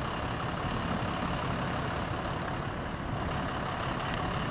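Steady low rumble of a Union Pacific freight train rolling away, its wheels running on the rails, with an even hiss and no change in level.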